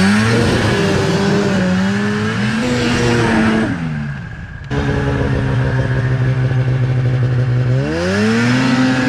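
Ski-Doo snowmobile's two-stroke engine revving up, holding, then dropping back; after a cut it runs at a steady note that climbs again near the end as the throttle is opened.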